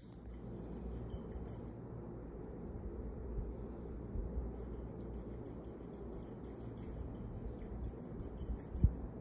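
Electronic bird chirps from a bird-in-a-cage cat toy: two runs of rapid, high, regularly repeated chirping, a short one at the start and a longer one from about halfway, over a steady low rumble. A sharp knock near the end.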